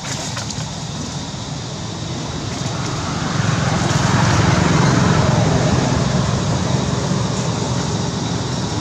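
A motor vehicle passing on a nearby road: a steady rumble that grows louder about three seconds in, peaks and slowly fades.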